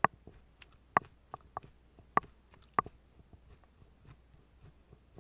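Scattered short, sharp clicks, irregularly spaced. Several stronger ones come in the first three seconds and fainter ticks follow, over a low steady room hum.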